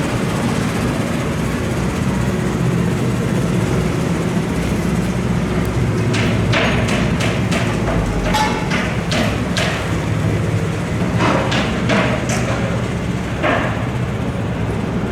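A steady low mechanical hum with a series of sharp knocks and thuds, irregular and often in pairs, starting about five seconds in and going on for about eight seconds.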